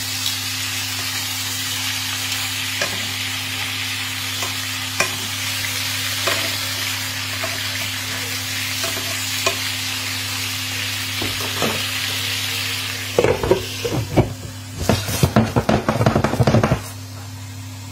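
Lamb steaks sizzling and frying in a hot pan, an even hiss with occasional small spits and clicks. About thirteen seconds in, a few seconds of loud irregular knocking and clatter break over it, with a low steady hum underneath throughout.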